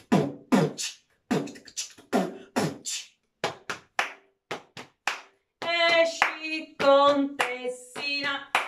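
A woman's beatbox-style mouth percussion with hand percussion on her body, short strokes about two a second. About halfway through she starts singing a melody over it.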